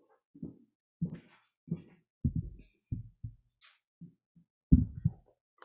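A string of dull thumps and knocks, picked up close by the lectern microphone as the speaker steps up to the lectern and handles it, with a brief rustle about three and a half seconds in. The loudest knocks come near the end.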